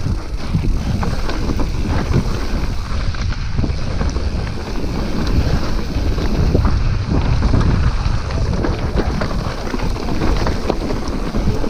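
Wind buffeting the microphone of a riding mountain biker's camera, over the crunch of tyres on loose rock and gravel and the rattle of a Cotic mountain bike, with many small knocks and clicks as it rolls over stones.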